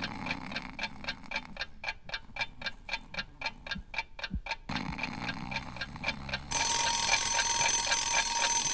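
Twin-bell mechanical alarm clock ticking at about five ticks a second, then its bells start ringing about six and a half seconds in.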